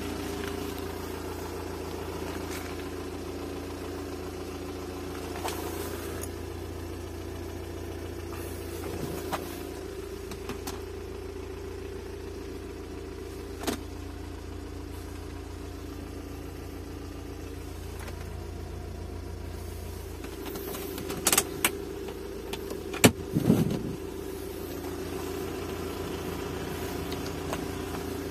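Diesel car engine idling steadily as it warms up, heard from inside the cabin. A few sharp clicks and knocks, mostly bunched about three-quarters of the way through.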